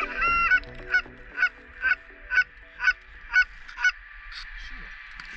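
Canada goose honking: a steady series of short, pitched honks, about two a second, that stops about four seconds in.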